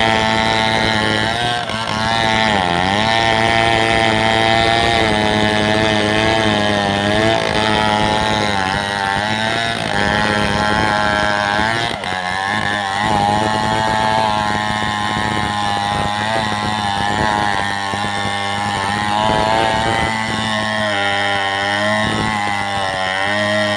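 Two-stroke chainsaw engine running continuously, its pitch dipping and recovering several times.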